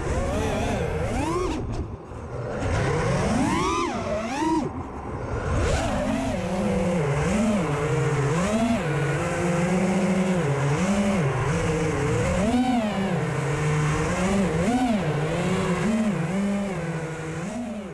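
FPV quadcopter's brushless motors whining, heard from its onboard camera. The pitch swoops up and down about once a second with the throttle, with two brief dips in the first five seconds before it settles into a steadier hover with a wavering pitch.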